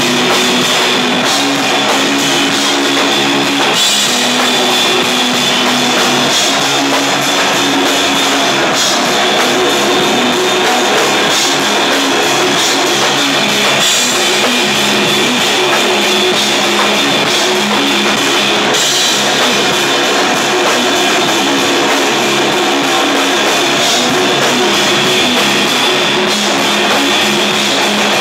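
Rock band playing loud and live: electric guitar and drum kit in a dense, steady wall of sound with no let-up.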